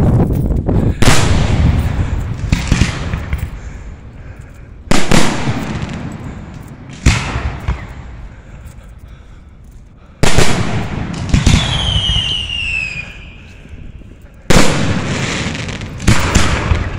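Aerial fireworks going off: a string of loud bangs a couple of seconds apart, each followed by a rolling echo that dies away. A falling whistle sounds for about a second and a half after one of the bangs past the middle.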